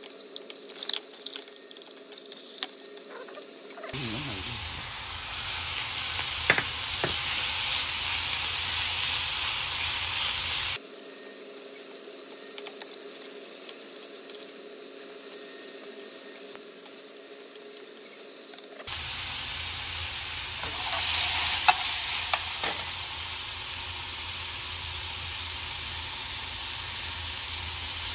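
Sliced beef, then beef with green peppers, sizzling in a nonstick frying pan while being stir-fried with chopsticks. A few sharp clicks from the chopsticks striking the pan sound over the frying hiss, and the sizzle gets louder or quieter abruptly a few times.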